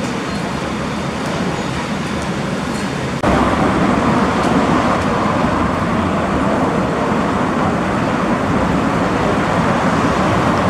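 Steady indoor background noise, then an abrupt jump about three seconds in to louder city street traffic noise, with cars driving past.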